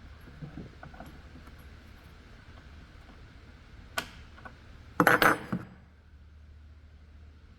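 Small metal tools and trimmer parts being handled: a few light ticks, a sharp click about four seconds in, then a short burst of metallic clinking and rattling a second later, over a low steady hum.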